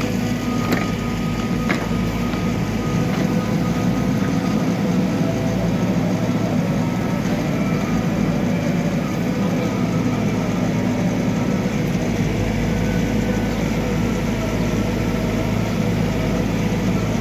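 Backhoe loader's diesel engine running steadily, with a couple of light knocks in the first two seconds.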